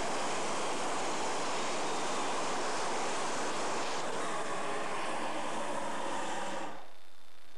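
Hot air balloon's propane burner firing in one long steady rushing blast that cuts off abruptly about a second before the end.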